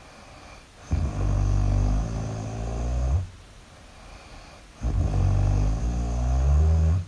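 A person snoring loudly: two long, low, rattling snores of about two seconds each, with quieter breaths in between.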